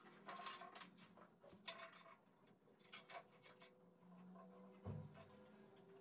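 Faint handling noises: light metallic clicks and knocks as a stainless steel gas hob is lifted and tilted on a granite worktop and a tape measure is handled, with a soft thump about five seconds in.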